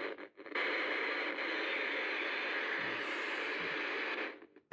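A Conairphone TCR200 clock radio's speaker hissing with steady radio static at maximum volume as the set powers up, after a few clicks of the power cable being plugged in. The hiss cuts off suddenly about four seconds in.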